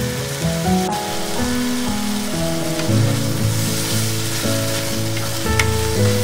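Green beans and diced sausage sizzling as they are stir-fried in a pan, with a sharp tap about five and a half seconds in. Background music with held notes plays throughout.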